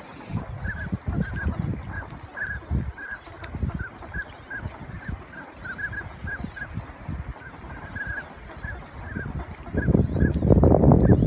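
A flock of wild ducks, mostly northern pintails, calling on the water: short calls repeated about three a second, over a low rumble. A loud rush of noise builds near the end.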